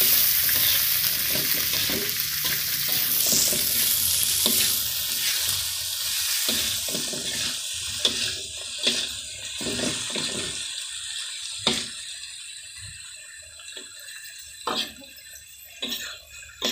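Vegetables sizzling in a hot wok while a spatula scrapes and knocks against the pan as petai beans, tomato and chilies are tossed. The sizzle dies down gradually, leaving separate spatula scrapes and knocks toward the end.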